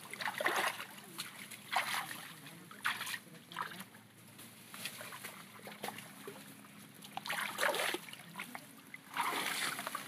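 Water splashing in short bursts, several times over, with quieter trickling and dripping between them.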